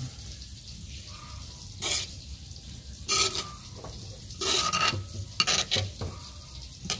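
A metal spoon scraping and stirring bean-sprout sambal in a stone mortar, in several short strokes with a faint metallic ring.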